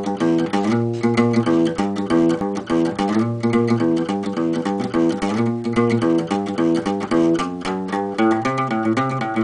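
Acoustic guitar played in a run of quick plucked notes and chords, a short riff repeating about every two seconds.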